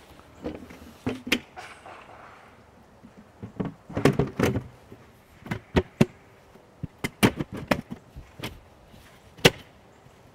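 Plastic drum lid being set on and its metal lever-lock clamp ring fitted and closed: a series of knocks and clicks, with a cluster about four seconds in and a sharp snap near the end.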